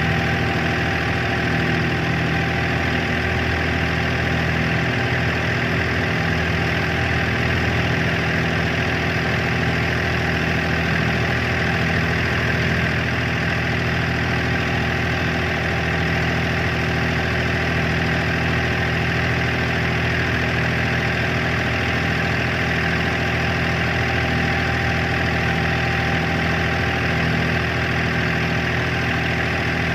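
Wooden abra water taxi's diesel inboard engine running steadily under way, with water rushing and splashing along the hull.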